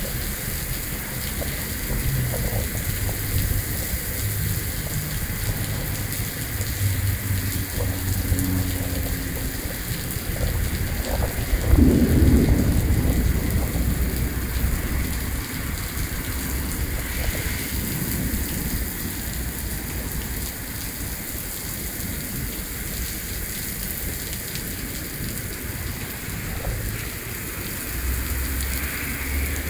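Heavy rain falling steadily, with low thunder rumbling through it and swelling loudest about twelve seconds in.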